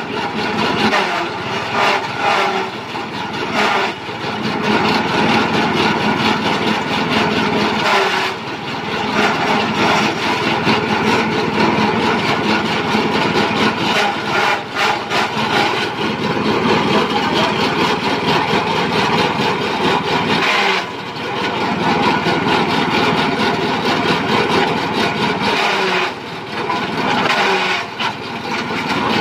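Small engine driving a belt-driven blade-type forage chopper while leafy green branches are fed in and cut up, a loud steady mix of engine noise and chopping. The level dips briefly a few times.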